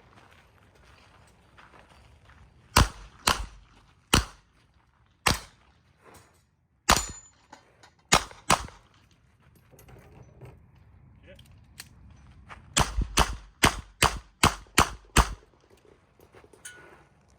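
Revolver shots at a shooting range. Seven shots come at uneven intervals, then a quick string of eight shots at about three a second.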